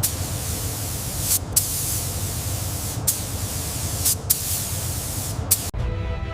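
Hissing spray over a low rumble, with several short, louder bursts of hiss. About five and a half seconds in it cuts off sharply and gives way to music.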